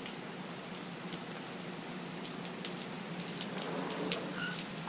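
Steady rain falling on a wet concrete patio and lawn, with many scattered sharp drop hits.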